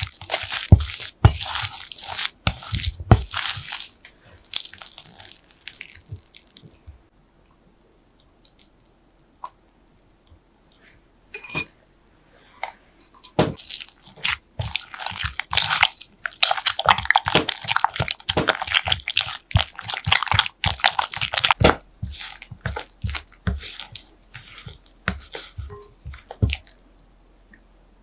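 Silicone spatula stirring and scraping sticky choux pastry dough and beaten egg around a glass bowl: wet squelching and scraping strokes in quick runs. The runs stop for several seconds in the middle, then start again until near the end.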